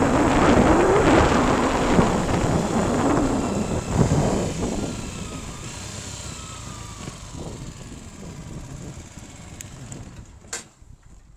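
A motor vehicle's engine running close by and then fading away over several seconds as it drives off.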